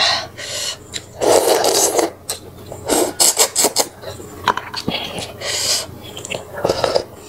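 Close-miked eating sounds of snakehead fish porridge: slurping and chewing in loud, noisy bursts, the longest about a second in, with a quick run of smacking sounds around the middle. Chopsticks and a metal spoon scrape in a glass bowl between mouthfuls.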